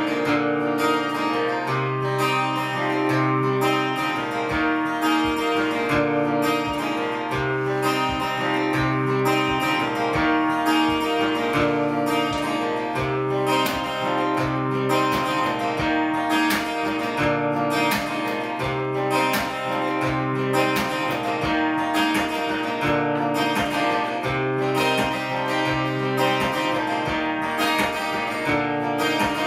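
Acoustic guitar played steadily, an instrumental passage with no singing: a repeating pattern of picked and strummed notes over recurring low bass notes.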